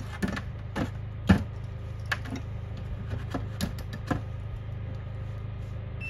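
A scattering of light clicks and taps, about ten at irregular intervals in the first four seconds, from small hard parts being handled, over a steady low hum.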